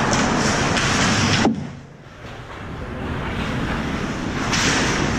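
Ice hockey rink noise picked up from behind the goal: skates on the ice and play around the net. About a second and a half in there is a sharp knock, after which the sound drops away suddenly and builds back up over the next few seconds.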